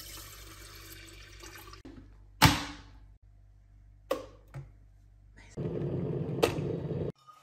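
Water poured from a measuring jug into an electric kettle, followed by a loud knock and a few clicks as the kettle is handled and switched on. Near the end a steady lower rumbling noise with a click, which cuts off suddenly.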